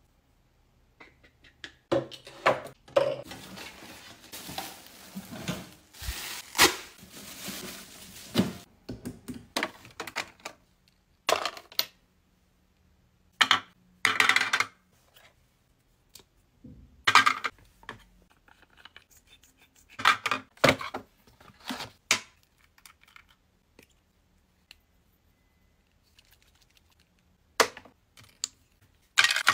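Skincare bottles and a cotton pad handled at a vanity. Soft rustling and peeling of a soaked cotton pad in the first several seconds, then scattered clicks and knocks as plastic and glass bottles are picked up and set down in a clear organizer.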